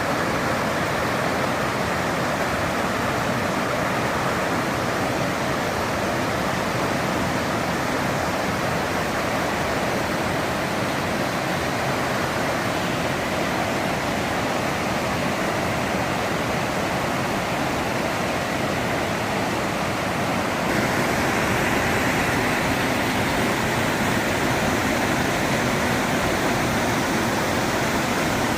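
Steady rush of a waterfall's falling water, an even hiss with no breaks. It gets slightly louder and brighter about three-quarters of the way through.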